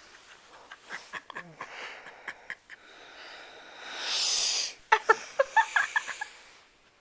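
A sleeping woman breathing noisily as she is roused: a long wheezing breath about four seconds in, then a quick run of short snorts and snuffles.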